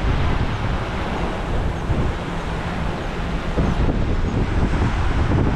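Wind buffeting the microphone in a steady low rumble, over the wash of surf breaking on the beach.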